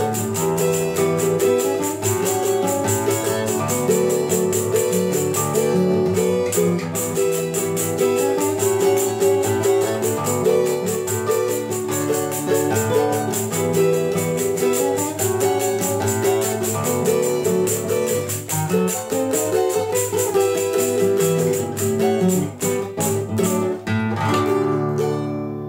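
Instrumental choro played by a small trio: nylon-string classical guitar carrying melody and bass lines, cavaquinho strumming and a pandeiro keeping a quick jingling rhythm. The piece comes to its close near the end.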